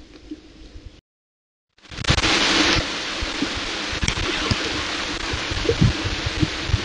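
Faint low thumps, a moment of dead silence about a second in, then steady rain hissing loudly with scattered drops knocking close by.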